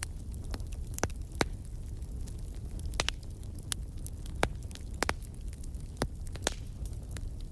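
Wood fire crackling in a fireplace: irregular sharp pops and snaps, roughly one or two a second, over a steady low rumble.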